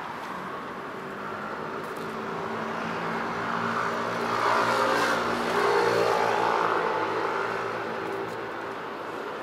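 A motor vehicle passing by on the street, its engine and tyre noise growing louder to a peak about halfway through, then fading away.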